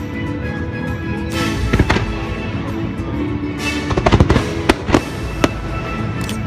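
Aerial fireworks shells bursting with sharp bangs and crackles over steady music. A few bangs come about one and a half seconds in, a dense cluster about four seconds in, then a few single pops.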